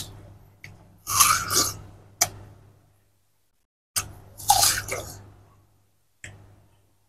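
Person biting and chewing juicy watermelon: two longer wet, crunching, slurping bites about three seconds apart, with short sharp clicks between them.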